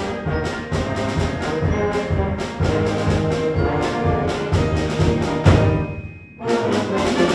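High school band playing, with brass to the fore and sharp percussion accents. The sound thins out briefly about six seconds in, then comes back with a loud accented chord near the end.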